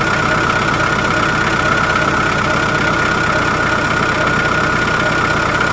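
A loud, steady mechanical running noise with a constant high whine, like an engine idling. It starts and stops abruptly.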